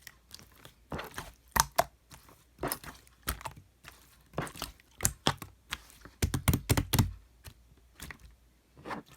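Hands squishing and poking a water slime, giving an irregular run of sticky clicks and small air-bubble pops, thickest around six to seven seconds in.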